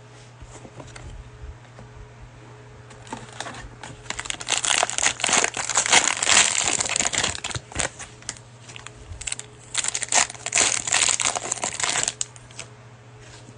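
Cellophane wrapper of a trading card pack crinkling as it is torn open and pulled off, in two spells of dense crackling, the first about four seconds in, the second about nine and a half seconds in.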